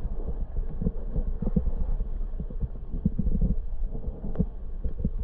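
Underwater sound heard through a submerged camera: a low, muffled rumble of moving water with many irregular soft knocks.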